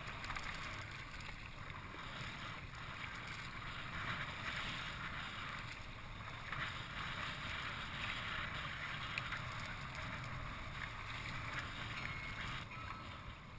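Water splashing and lapping around a kayak on the move, a steady hiss, with a low wind rumble on the microphone.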